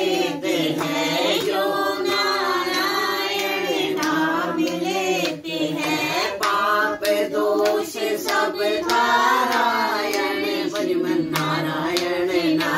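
A group of men and women singing a Hindu devotional song together in unison, with hands clapping in time to the beat.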